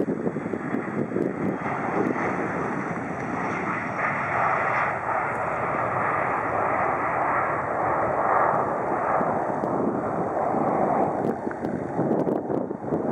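The two rear-mounted turbofans of an Embraer ERJ-145-family regional jet running at takeoff power: a steady, loud rushing jet noise as the aircraft lifts off and climbs away, growing slowly louder.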